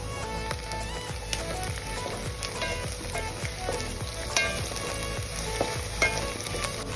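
Chopped onions sizzling as they fry in hot mustard oil in a steel pot. A wooden spatula stirs them, scraping and knocking against the pot several times, most sharply near the end.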